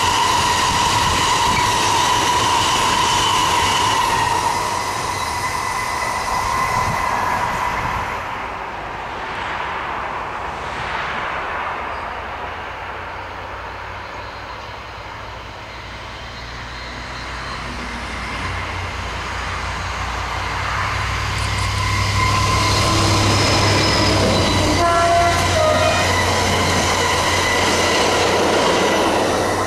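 A long freight train of hopper wagons rolls past with steady wheel-on-rail noise and a high ring from the wheels, fading away after about eight seconds. Later a diesel track-maintenance vehicle approaches and passes with a low engine rumble, sounding short horn blasts about three quarters of the way through.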